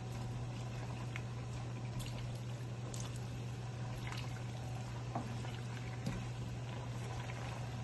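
Vegetables in broth bubbling at a boil in a pan, with faint scattered pops and clicks, over a steady low hum.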